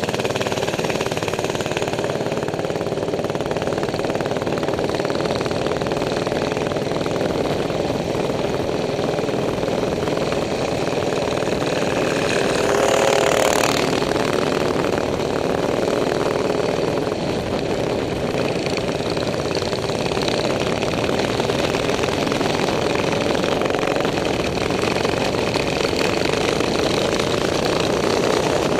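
Minibikes' small single-cylinder four-stroke engines running steadily at cruising speed, swelling briefly about halfway through.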